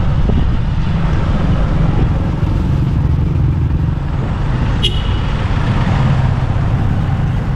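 Steady low rumble and road noise of a moving vehicle, with a brief sharp high chirp about five seconds in.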